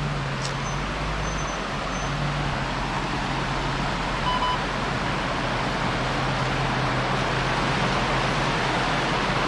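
Jeep driving along a rough back road: a steady low engine hum under constant road and tyre noise.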